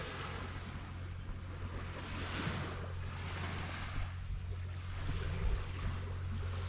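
Small waves washing onto a sandy beach, the surf swelling and fading every two or three seconds over a steady low hum.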